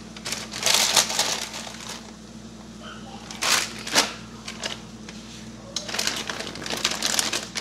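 Plastic bag of shredded lettuce crinkling and rustling as the lettuce is pulled out by hand, in several irregular bursts.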